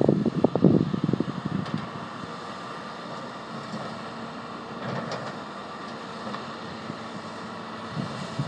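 Tracked hydraulic excavator's diesel engine running with a steady drone and a faint whine. Wind buffets the microphone for about the first second and a half, then eases off.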